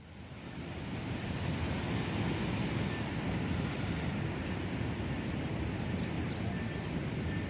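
Creek water rushing steadily, fading in over the first second, with a few faint high chirps near the end.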